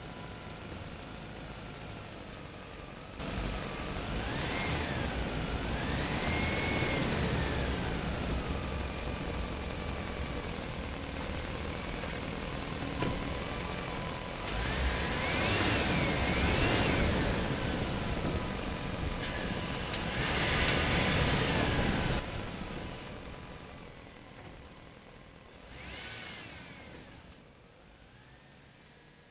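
Vehicle engine sound revving up and down in several swells, its pitch rising and falling, over a faint steady whine; it fades away near the end.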